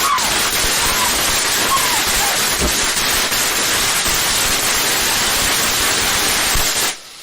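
A lit firework spraying with a loud, steady hiss that cuts off suddenly just before the end.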